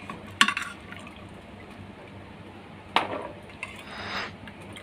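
Metal perforated ladle scooping boiled chickpeas out of an aluminium pressure cooker: a clink against the pot just after the start, a louder knock about three seconds in, then a brief splash of cooking liquid draining back through the ladle.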